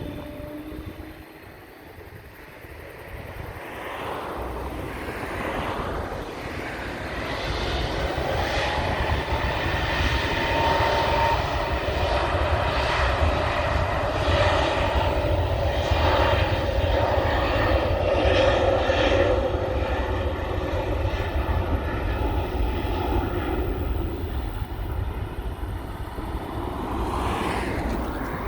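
Airbus A320neo jet engines, the sound swelling over several seconds and then staying loud and steady, a whine over a low rumble.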